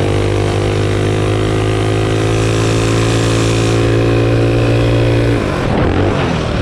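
Minibike's small engine running at wide-open throttle in a race, holding steady high revs after climbing off the start. About five seconds in the rider comes off the throttle and the engine note drops and breaks up.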